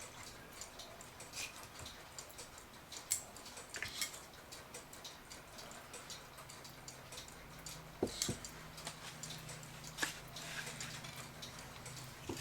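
Faint, irregular clicks and small knocks of a tool prying at the nailed wooden boards of an old mantel clock case, with a sharper pair of clicks about two-thirds of the way through.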